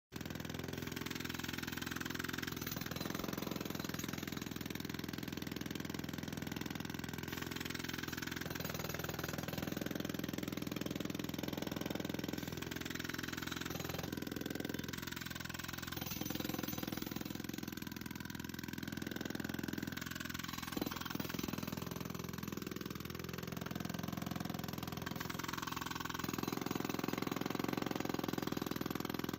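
An engine or motor running steadily with a constant hum, its pitch shifting slightly now and then.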